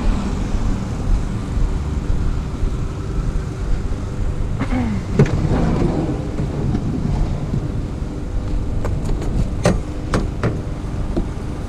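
Steady low rumble of an idling vehicle engine, with a handful of sharp knocks in the second half as scrap is handled.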